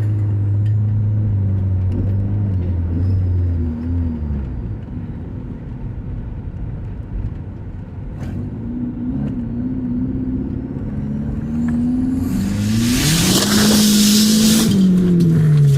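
Motor vehicle engines running, with pitch that shifts up and down. About three-quarters of the way through, a vehicle passes close by: a surge of road noise whose engine tone rises and then falls away.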